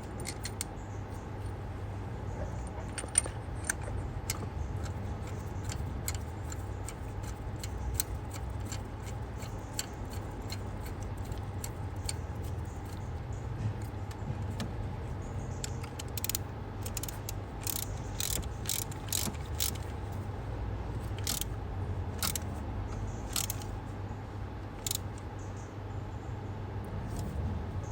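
Ratchet and socket clicking in short irregular runs as a spark plug is fitted and tightened, the clicks coming thicker in the second half, over a steady low hum.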